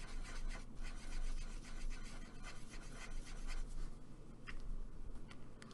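Alcohol marker nibs scratching across paper in quick colouring strokes, with a few small sharp clicks near the end.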